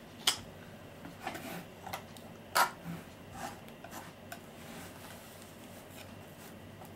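Metal palette knife scraping and scratching through plaster in a few short strokes as it is peeled back, the loudest stroke about two and a half seconds in, followed by a few faint ticks.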